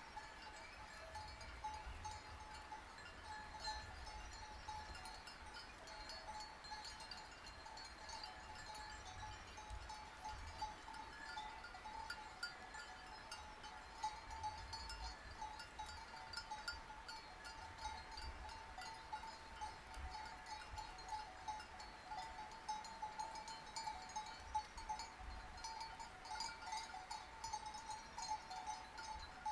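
Many sheep bells clinking and clanking continuously at an even level as a flock grazes, with sheep bleating now and then.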